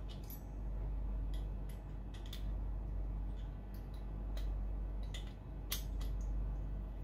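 Scattered small metallic clicks and taps as an Allen key works at a set screw on the hub of an 80 mm electric ducted fan. A steady low hum runs underneath.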